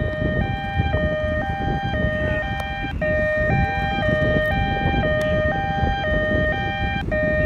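Two-tone ambulance siren switching between a high and a low note about every half second, over a steady rumbling noise.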